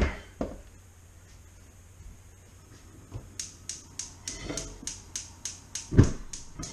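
Gas cooktop's spark igniter clicking rapidly and evenly, about four clicks a second, as a burner is lit. A metal pot clanks down into a steel sink at the start, and there is a thump about six seconds in.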